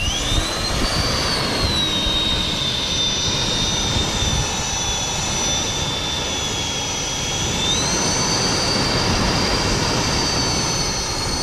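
An electric RC thrust fan spins up to a high whine and keeps running with a loud rush of air. Its pitch sags slightly, then rises again about eight seconds in.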